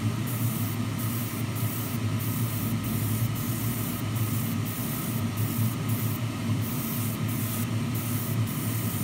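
Airbrush spraying thin black base coat at low pressure: a steady hiss broken by brief pauses as the spray is let off between short mist-coat passes. A steady low hum runs underneath.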